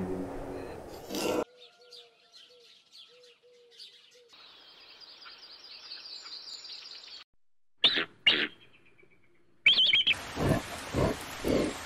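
A loud pitched sound cuts off about a second and a half in. Small birds then chirp faintly for several seconds. Two short shrill calls come near the middle, and a loud high call near the end is followed by a run of deep, evenly spaced grunts.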